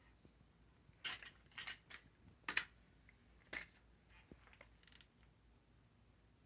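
Plastic grabber reacher tool clicking as it is handled and worked: a handful of light, sharp clicks spread over a few seconds, the loudest about two and a half seconds in.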